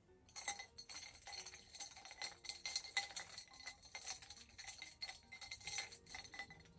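A spoon clinking rapidly and repeatedly against the inside of a cup, several strikes a second, each ringing at the same few pitches: coffee being stirred. The clinking stops about a second before the end.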